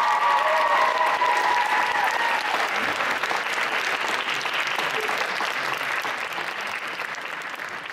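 Audience applauding and clapping, with the routine's final held chord of music ringing out over the first two seconds or so; the applause then slowly dies away.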